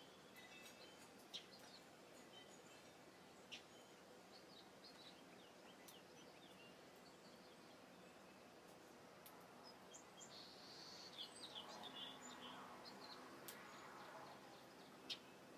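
Faint bird chirps and calls over a quiet background hiss, thickening into a quick run of chirps about two-thirds of the way through, with a few sharp clicks.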